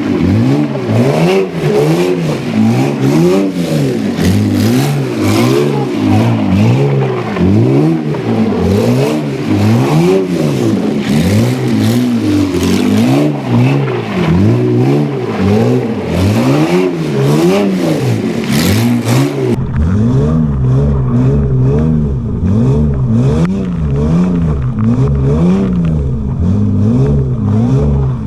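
BMW E36 328i straight-six engine in a drift kart, revved up and down over and over while drifting in snow. About two-thirds of the way through the sound turns abruptly duller, losing its highs and gaining low rumble.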